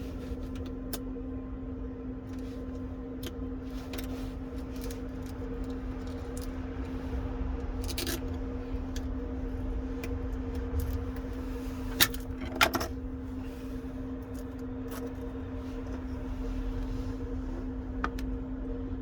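Small hand tools clicking and tapping on a smartphone's internal parts as it is taken apart, with two sharper clicks about twelve seconds in, over a steady low hum.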